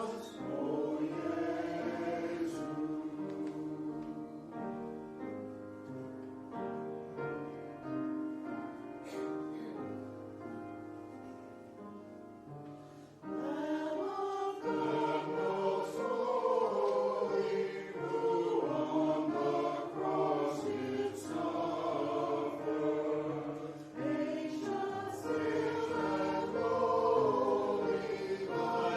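A choir singing sacred music in sustained phrases. The sound softens gradually over the first part, then the full choir comes back in louder about halfway through.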